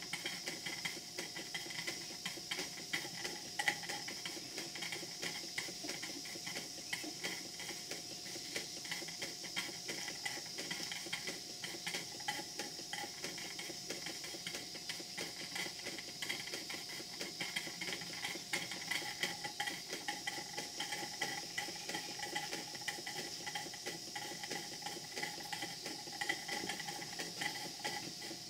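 Model live-steam plant running under steam: the engines' valve gear and linkages tick rapidly and steadily over a continuous hiss of steam.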